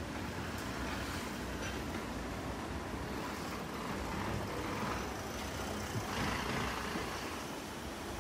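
Steady rumble of a departed local electric train running off along the line, mixed with wind on the microphone. It swells a little about six seconds in.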